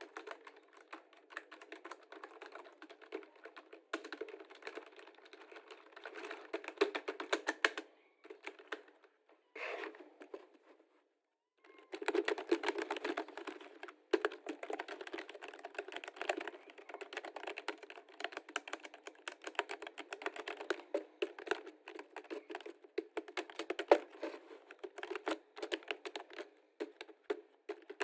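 Fast typing on a computer keyboard: a dense run of key clicks. It pauses for a few seconds about a third of the way in, broken only by one short scraping sound, then resumes.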